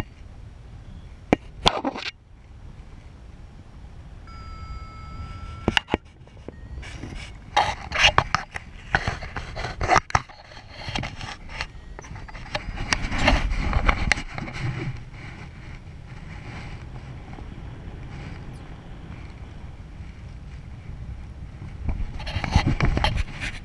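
Wind rushing over the camera microphone of a paraglider in flight, with rustling and small knocks and a louder gusty stretch near the end. A brief steady tone sounds once, about four to five seconds in.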